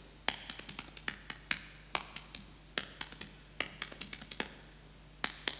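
Hambone body percussion: hands slapping the thighs and chest in a quick, uneven run of sharp slaps, about five a second, some louder than others.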